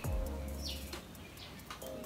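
Background music with a deep bass and sustained mid-range notes, and a short falling high chirp about two thirds of a second in.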